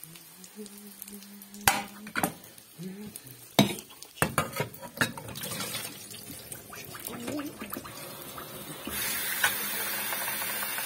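Metal spoon clinking and scraping against a frying pan and an enamel bowl in several sharp knocks, then, about nine seconds in, tap water starts running steadily into the enamel bowl in the sink.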